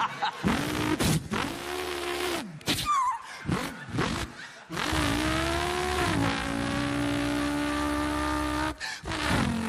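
A person imitating a car engine with his voice: several revs that rise and fall, a short squeal-like glide about three seconds in, then a long steady held engine note.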